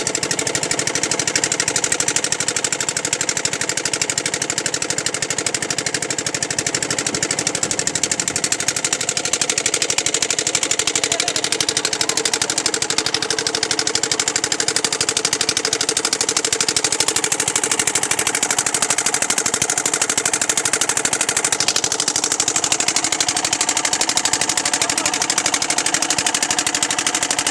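A boat's engine running steadily under way, with a rapid, even knocking beat.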